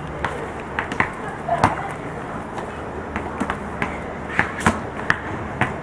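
A basketball bouncing on an outdoor court: a string of irregular sharp thumps over a steady low background noise.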